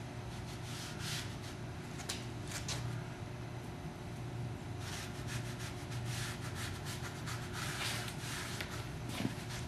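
A sponge rubbing in short, repeated strokes against a textured QuarryStone faux-stone panel, working dirty glaze into the grout lines to darken them. The strokes come thicker in the second half, over a steady low hum.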